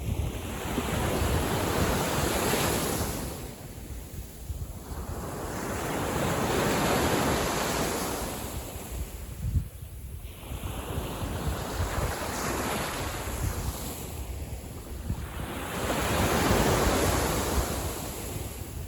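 Small waves from a calm sea breaking and washing on the beach, the surf swelling and fading four times, about every five seconds. Wind rumbles on the microphone underneath.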